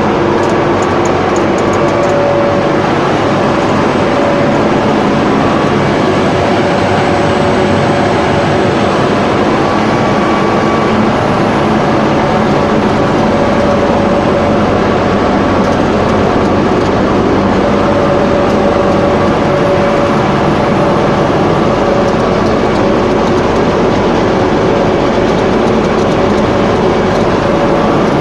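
Buldog DUPLEX double-sided calibrating-sanding machine running: a loud, steady machine noise from its motors and sanding rolls, with a few constant tones running through it, all units working normally.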